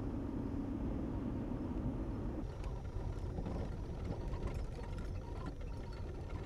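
Low rumble of a running vehicle engine, with light rattling clicks setting in about two and a half seconds in.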